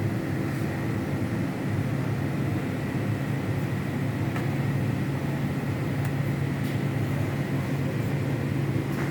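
Ersa ETS 250 wave soldering machine running: a steady mechanical hum with a couple of faint clicks, about halfway through and near the end.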